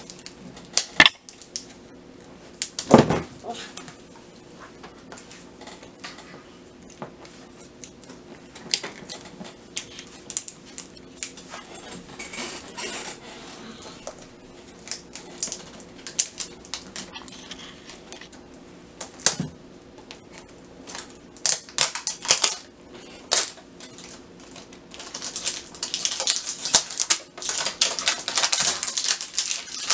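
A plastic toy jewelry box being handled and unwrapped: scattered clicks and taps of hard plastic, then dense crinkling of plastic wrap over the last few seconds. A faint steady hum runs underneath.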